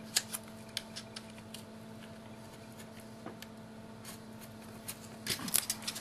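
Utility knife cutting an edging strip at a board's corner: faint scattered clicks and light scrapes, mostly in the first second and a half, then a quick run of taps and clicks near the end as the knife is set down on the table. A faint steady hum lies underneath.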